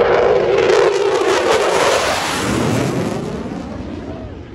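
F-16 Fighting Falcon jet passing overhead, a loud jet noise at its peak for the first two seconds, then dropping in pitch and fading away as it flies off.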